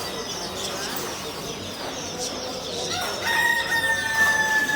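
A rooster crowing, one long held note starting about three seconds in, over the steady chirping of many small birds.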